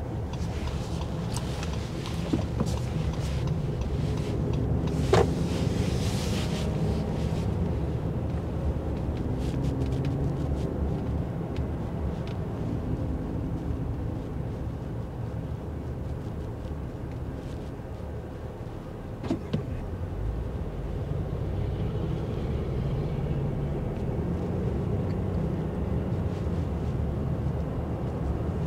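Car driving on city streets, heard from inside: steady engine and road noise, with a sharp click about five seconds in and another near twenty seconds.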